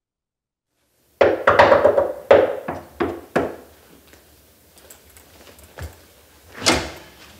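Knocking on a front door: a quick series of about six loud knocks starting about a second in, then a faint knock and a single louder thud near the end.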